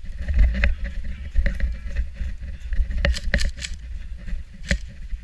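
Low, uneven rumble on the microphone with a few sharp snaps: three in quick succession a little past halfway and one more near the end.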